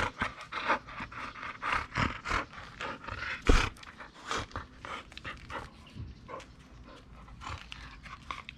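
Golden Retriever puppy panting quickly in the heat while gripping a rubber toy ball in its mouth, about three breaths a second. A sharper knock about three and a half seconds in is the loudest moment.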